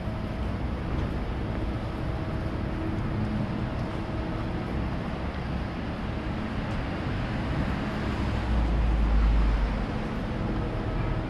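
Busy city street ambience: a steady wash of road traffic noise from passing cars and the street, with a deep low rumble for about a second and a half near the end.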